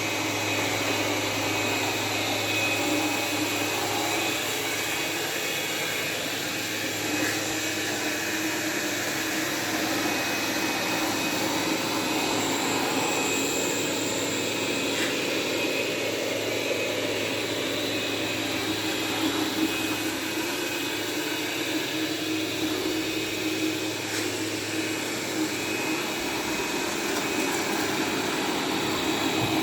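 Roborock S7 robot vacuum running steadily as it works over kinetic sand: an even whirring noise with steady tones in it. A low hum underneath drops out near the end.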